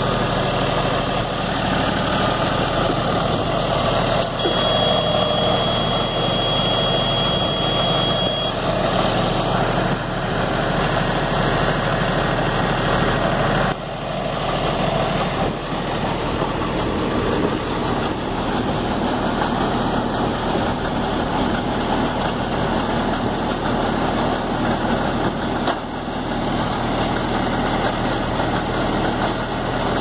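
A John Deere tractor engine runs steadily while pulling a Redlands SBA 330 mini round baler as it gathers straw. A steady high-pitched tone sounds for about four seconds, starting about four seconds in.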